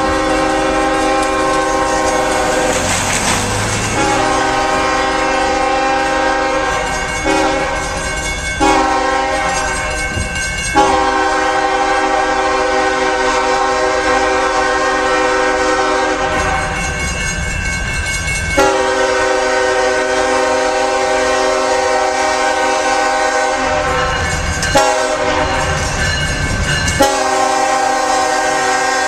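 Horn of a CSX GE Evolution Series diesel locomotive at the head of a coal train, sounding a steady multi-note chord in a series of long blasts with brief breaks as the train approaches. The low rumble of the train runs beneath and shows through in the breaks.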